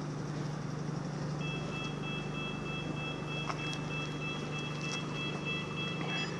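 A vehicle engine idles with a steady low hum, and about a second and a half in an electronic warning beeper starts up, sounding rapid repeated two-tone beeps that carry on.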